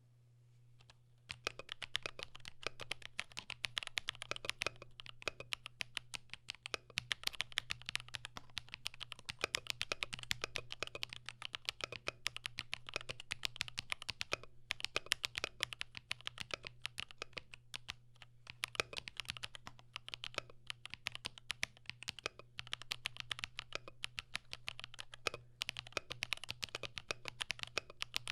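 Typing on a Vortex Model M SSK keyboard kit with Akko CS Snow Blue Grey linear switches, an FR4 plate and Poron foam: a fast, steady run of keystrokes that starts about a second and a half in.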